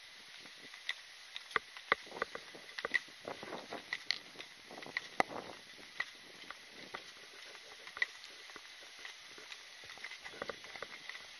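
Footsteps with the clicking and rattling of carried gear jostling as a person walks, including a light metallic tick about once a second.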